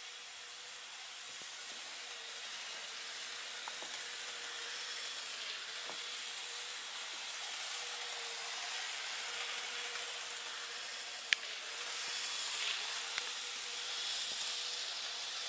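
N gauge Graham Farish class 04 diesel shunter running fast with its train, its small electric motor whining steadily over a hiss of wheels on the rails, growing a little louder. Two sharp clicks come in the second half.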